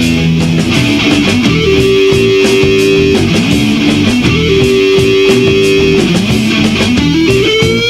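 Rock band recording: electric guitar over bass guitar and drums, playing long held notes, with a note bending upward near the end.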